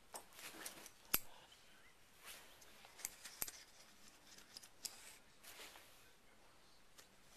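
Hair clip snapping open and shut: a handful of sharp, scattered clicks, with soft rustling of fabric between them.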